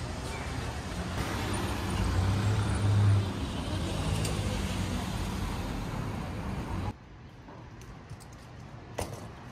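Street traffic: motor vehicles passing with a low engine rumble that swells and is loudest about two to three seconds in. About seven seconds in the sound drops abruptly to quieter street background, with one sharp click near the end.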